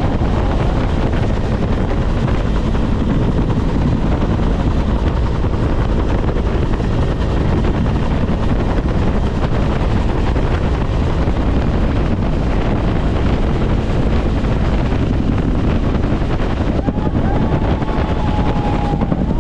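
Bell UH-1 Huey helicopter in flight, heard from inside its open-sided cabin: steady, loud turbine and rotor noise with wind.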